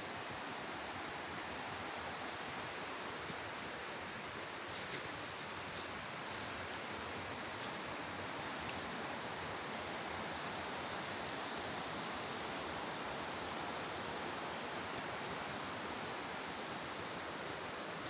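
A stream running steadily, with a continuous high-pitched chorus of crickets over it, the crickets the loudest part.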